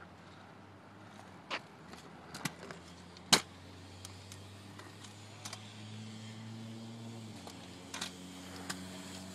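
A few sharp clacks and knocks, the loudest about three seconds in, typical of a kick scooter's deck and wheels on concrete. Under them runs a steady low engine-like hum that grows louder about halfway and shifts pitch near the end.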